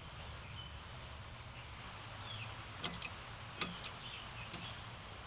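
About five light, sharp clicks and taps in under two seconds, past the middle, from steering-wheel parts being handled and fitted over a low, steady hum.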